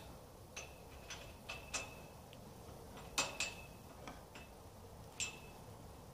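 Metal clicking and clinking of a wrench tightening a bolt on a steel clamp on a galvanized greenhouse post: about eight irregular sharp ticks, some ringing briefly, the loudest a little past three seconds in.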